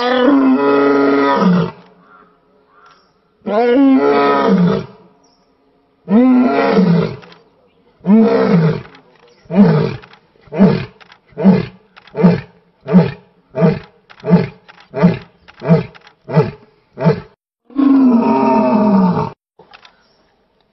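A male Asiatic lion's roaring bout. It opens with four long roars, each falling in pitch, then runs into about a dozen short grunting roars at an even pace of under two a second, and ends with one more long roar near the end.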